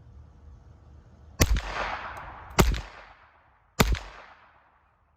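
Three shots from a Ruger Mark IV 22/45 Lite .22 LR pistol fired unsuppressed with CCI Quiet-22 rounds, about a second and a quarter apart, each followed by a fading echo.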